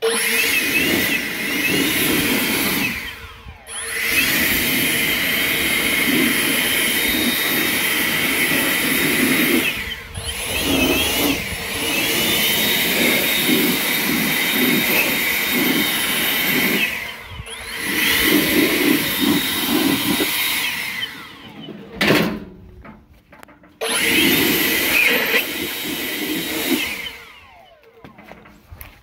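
Handheld leaf blower running in bursts, blowing dust out of a furnace's squirrel-cage blower wheel and housing. It is a rushing blast with a high whine that winds down and spins back up about four times, then cuts off near the end.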